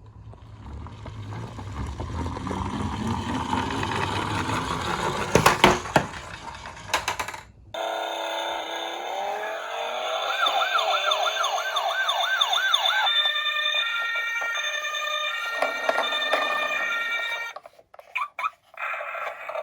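A toy ambulance car rolling down a plastic slope, with a low rumble and a few sharp knocks. About eight seconds in, this gives way abruptly to an electronic ambulance siren: a fast up-and-down wail, then held steady tones.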